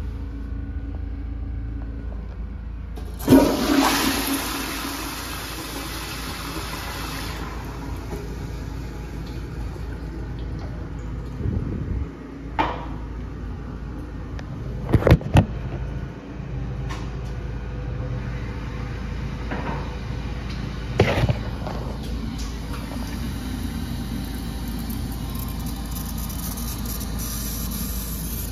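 Kohler Highline Pressure Lite pressure-assisted toilet flushing: a sudden loud whoosh about three seconds in that fades over about four seconds, followed by a steady hiss as it refills. A few sharp knocks come later.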